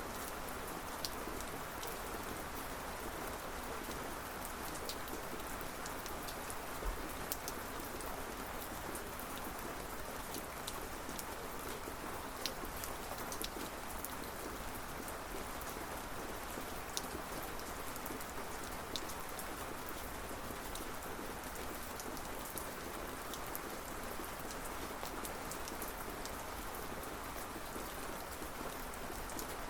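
Steady rain falling, with scattered sharp drips and drop hits standing out against the even hiss.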